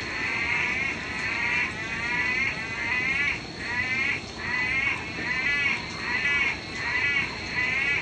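Frogs calling loudly: a steady run of short, wavering calls, about one every three-quarters of a second.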